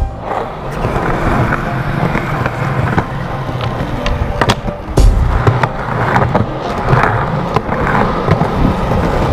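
Skateboard wheels rolling over concrete, with a few sharp clacks of the board, the loudest one about halfway through.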